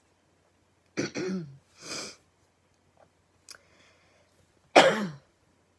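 A woman coughing and clearing her throat: a cough about a second in, a sharp breath, then a louder cough near the end.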